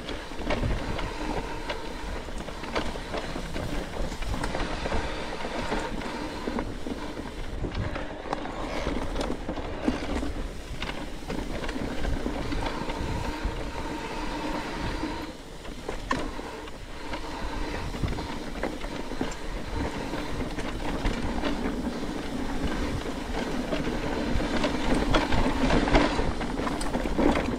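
Mountain bike rolling down a dirt singletrack, heard from a camera on the bike or rider: continuous tyre-on-dirt rumble and rattling of the bike over roots and bumps, with frequent sharp knocks.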